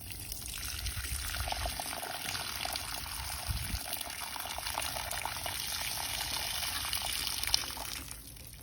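Water collected by a TaoTronics 50-pint dehumidifier being poured out of its collection tank in a steady stream for about eight seconds, tapering off and stopping near the end.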